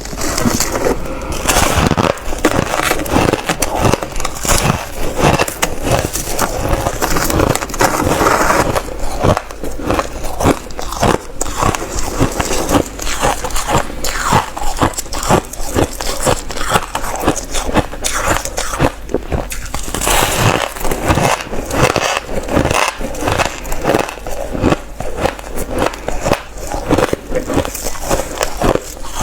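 Crushed ice being bitten and chewed close to the microphone: a dense, irregular run of crunches and crackles, several a second.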